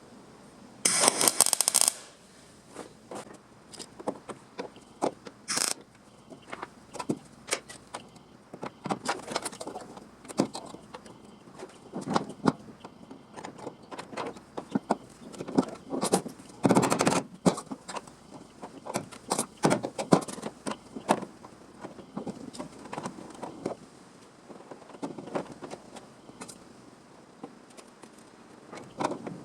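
Sheet-metal fabrication work: scattered scrapes, clicks and light taps of tools and steel being handled, with one short, loud, harsh burst about a second in.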